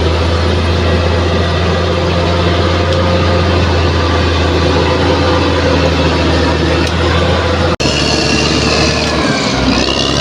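Bulldozer's heavy diesel engine running steadily with a deep hum. Near the end the sound breaks off for an instant, then comes back with a high whine, and the engine pitch dips briefly.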